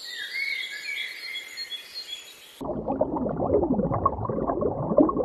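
A string of high, quick chirping calls lasts about two and a half seconds, then cuts abruptly to a low, rough rumbling sound with a dipping tone in it.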